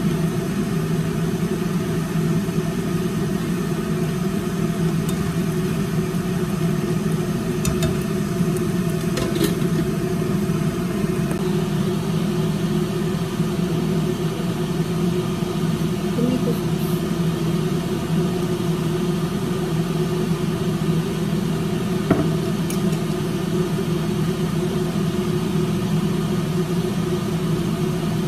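A steady mechanical hum that does not change, with a few light clicks about 8, 9 and 22 seconds in.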